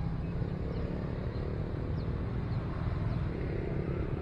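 Steady low rumble of outdoor background noise, with a few faint short bird chirps above it.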